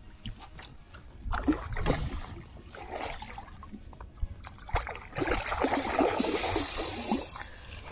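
A hooked tarpon splashing and thrashing at the water's surface beside the boat: a short burst about a second and a half in, then a longer, louder stretch of splashing from about five seconds in.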